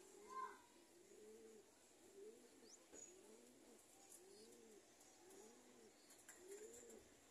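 Domestic pigeons cooing, faint: a steady run of rising-and-falling coos, a little over one a second. A brief higher bird note sounds near the start.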